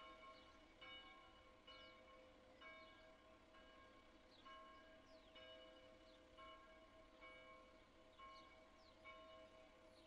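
A church bell heard faintly from a long distance, struck about once a second, each stroke ringing on into the next.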